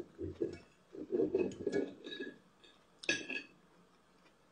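Knife and fork working against a ceramic plate while cutting meat: a run of muffled low knocks, then a single sharp ringing clink about three seconds in.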